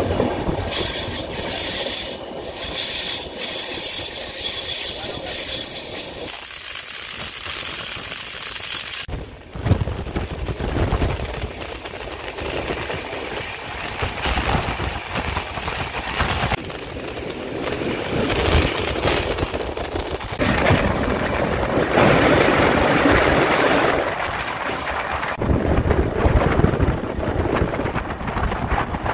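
Express passenger train running at speed, its wheels clattering over the rails with a steady rush of rail noise. The first nine seconds carry a high hiss over the running noise; then the sound changes abruptly and the clatter comes as irregular knocks.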